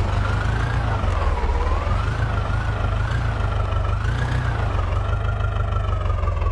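Heavy diesel engine running steadily, with a high tone over it that slowly wavers up and down in pitch.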